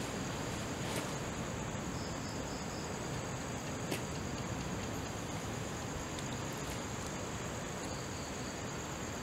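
Night insects, crickets by their sound, chirring steadily in a continuous high-pitched band over a faint hiss, with a soft click about four seconds in.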